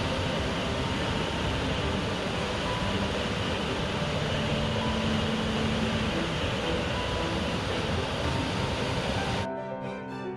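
Steady, heavy rush of a waterfall's churning water, with music playing faintly beneath it. Near the end the water sound cuts off abruptly, leaving only the music.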